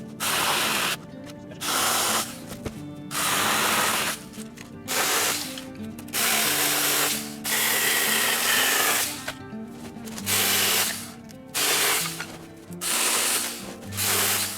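Tomyvic 6-inch mini battery chainsaw cutting small branches in short bursts, about nine runs of half a second to a second and a half each with brief pauses between, over background music.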